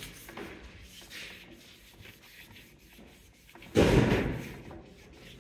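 A single heavy thump about two-thirds of the way in, dying away over about a second, over faint rubbing.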